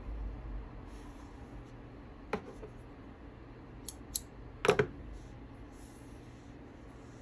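A few sharp clicks from small spring thread snippers, the loudest a quick double click a little past halfway, with a soft rustle of thread and cloth being handled in between.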